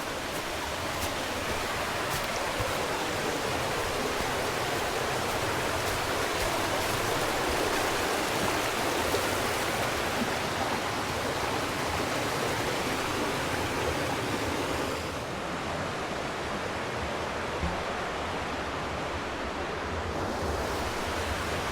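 Mountain creek rushing steadily over rocks, a continuous wash of water that thins slightly in its upper hiss about fifteen seconds in.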